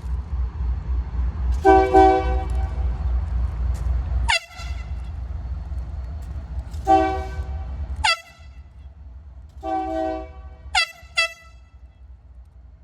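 Union Pacific locomotive air horn sounding three long blasts, each cutting off with a quick sliding squeal. A low rumble runs under the first blast.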